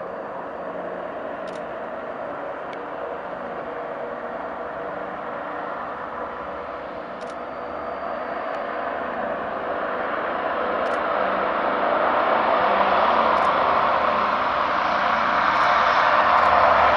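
Lockheed Super Constellation's four Wright R-3350 radial piston engines at takeoff power as the airliner rolls down the runway, a steady propeller and engine drone that grows steadily louder over the second half as it approaches.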